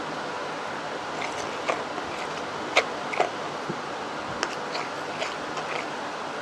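Freshly activated crunchy, fluffy slime being kneaded and stretched by hand, giving a dozen or so small scattered pops and clicks over a steady hiss.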